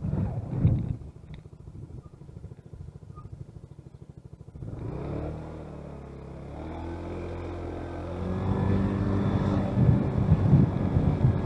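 A vehicle's engine running quietly at low revs, then pulling away about five seconds in with a rising engine note that settles into a steady drone. Wind buffets the microphone at the start and again near the end.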